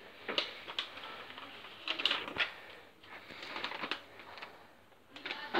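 A folded paper map being opened out and handled, its sheets rustling and crackling in a series of short bursts.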